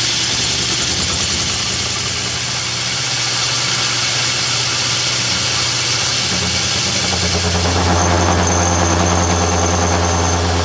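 Atlas lathe running, a carbide insert facing a cast iron engine cylinder casting, with the cut chattering. A steady hum under a hiss of cutting, turning louder and buzzier about seven seconds in, with a thin high whine over it for a couple of seconds.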